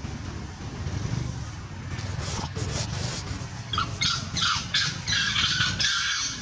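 Long-tailed macaques give a run of harsh, high squeals and screeches from about two seconds in, thickest in the last two seconds, over a steady low engine drone.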